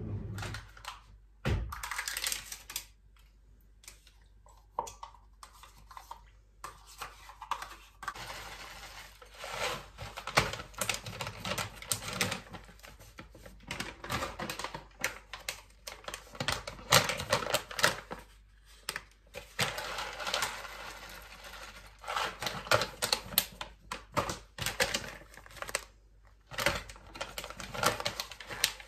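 Rapid, irregular clicking and tapping in dense runs with short pauses, like small hard objects being handled close by.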